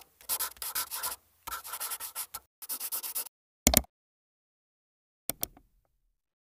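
Video-editing transition sound effects: a run of noisy, scratchy swishes through the first three seconds, a short loud hit just before four seconds, and two quick clicks a little after five seconds.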